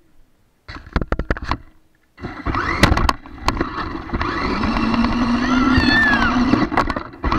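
Electric motor of a small remote-control car whirring as it drives over carpet, with sharp knocks and rattles as it bumps into wooden furniture. It starts under a second in.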